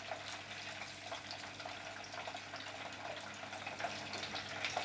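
Beer-batter carp pieces sizzling in fat in a frying pan with a steady crackling hiss, with small clinks of a utensil turning them. A steady low hum runs underneath.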